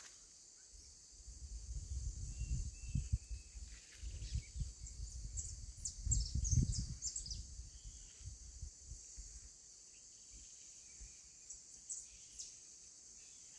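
Steady high-pitched insect drone with scattered short bird chirps, over a low irregular rumble on the microphone from about a second in until about nine seconds in.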